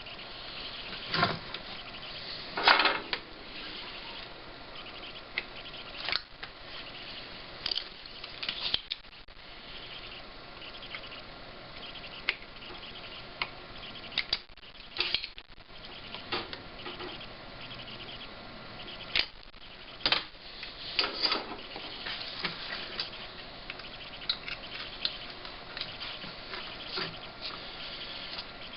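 Scattered small clicks, taps and brief scrapes of hand tools handling a monitor's power-supply circuit board during the swap of a failed filter capacitor, over a steady background hiss.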